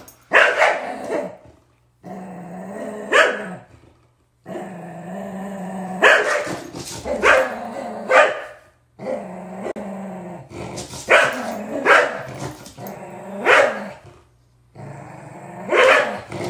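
Dogs play-growling through a game of tug-of-war over a rope toy, the long growls broken by sharp barks every second or two.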